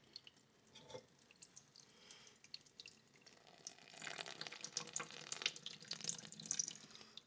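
Thin stream of water from a kitchen faucet running into a stainless steel sink, faint at first, then spattering louder from about four seconds in as it lands on a Vaseline-coated paper towel held under it.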